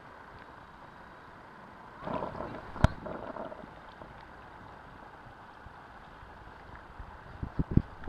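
Steady rush of river water and air on a camera microphone from a boat on a fast, silty river, with a brief voice about two seconds in, a sharp knock near three seconds, and a few low thumps near the end.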